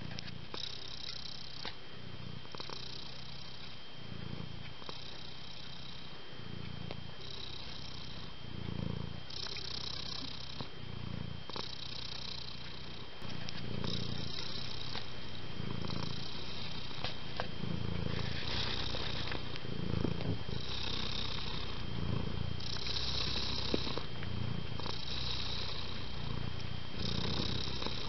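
Domestic cat purring, the purr swelling and easing with each breath about every two seconds, louder from about halfway through. A faint steady high whine runs underneath.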